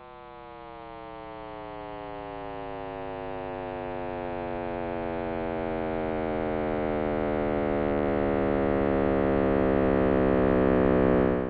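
Sonified 'sound of the Big Bang' made from the cosmic microwave background: a deep, low-pitched scream of many stacked tones that slowly slide down in pitch while growing steadily louder, cutting off suddenly at the end.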